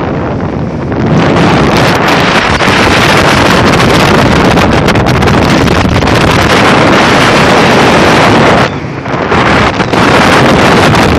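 Heavy wind buffeting on the microphone of an open boat running at speed, over a 250 hp outboard motor and rushing water. The wind noise eases for about a second near nine seconds in, then returns.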